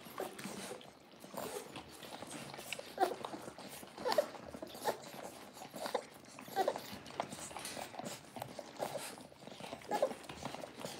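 Four-and-a-half-week-old Dalmatian puppies suckling from their mother, making short squeaks and grunts every second or so. Soft clicks and smacks of feeding run under them, along with the mother eating from a steel food bowl.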